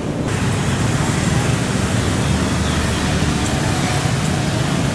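Steady, mostly low-pitched noise of road traffic circling close by, with a brighter hiss that joins just after the start.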